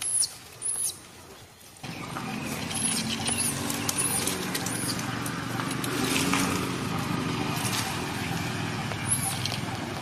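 Newborn macaque giving short, very high-pitched squeaking cries, about seven in all, over a steady low rumble that starts about two seconds in.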